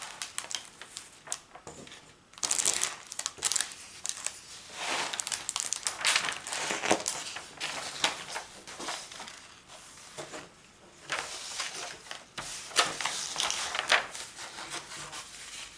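Plastic release paper being peeled back and handled on a diamond painting canvas, crinkling and crackling in irregular bursts as it comes off the tacky glue.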